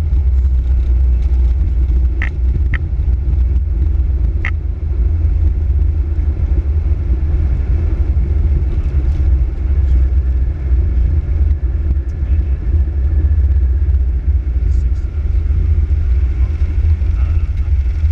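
Steady, heavy low rumble inside the flight deck of a Boeing 737-800 rolling down the runway after landing, with a few brief high ticks about two and four seconds in.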